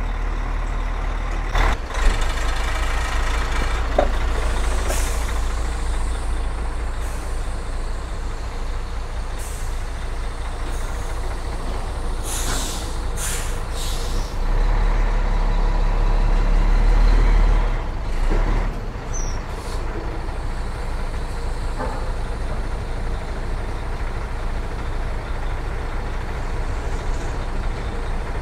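Heavy diesel truck running close by, with several sharp air-brake hisses about halfway through, followed by a few seconds of louder engine revving.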